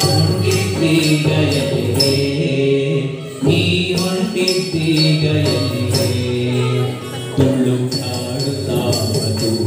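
Carnatic vocal music for Bharatanatyam dance: a singer's chanting melody over a low sustained drone, with a steady rhythmic beat of percussion strokes.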